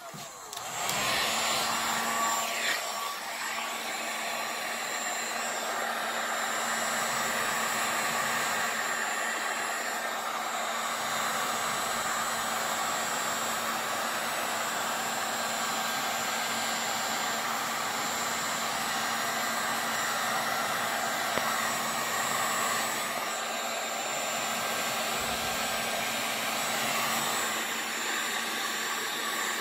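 Hand-held hot-air blower running steadily over wet resin, switched on about a second in: a constant rush of air over an even motor hum.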